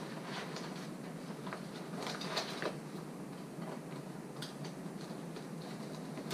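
Scattered small clicks and taps of hands fitting the rearming-kit piece into the inflator of an Onyx A-24 automatic inflatable life jacket, with a cluster of clicks about two seconds in, over a steady low hum.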